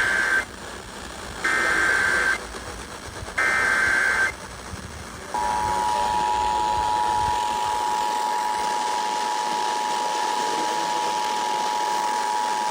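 Emergency Alert System tones over radio: the tail of one SAME header data burst and then two more, each a harsh warbling screech about a second long, encoding a severe thunderstorm warning. About five seconds in, the steady two-tone EAS attention signal starts and holds, announcing that an emergency message follows.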